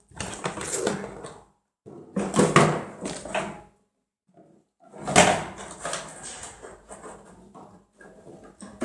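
Camera box contents and packaging being handled and set down: rustling with small knocks in three separate bursts, with dead-silent gaps between them.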